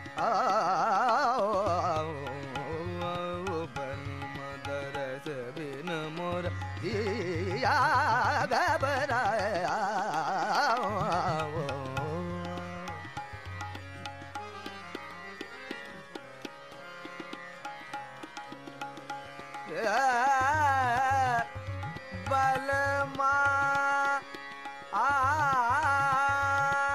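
Indian classical-style background music: a melodic line with wavering, ornamented pitch bends over tabla, played in phrases with short pauses between them.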